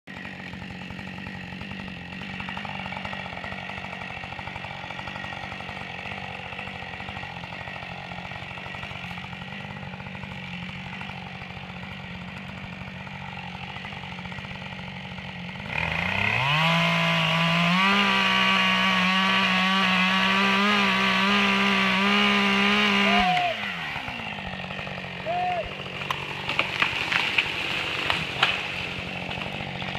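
Two-stroke chainsaw idling, then revved to full throttle about halfway through and held there for several seconds while cutting into a tree, before dropping back to idle. A short blip of the throttle follows, then several sharp cracks and knocks near the end.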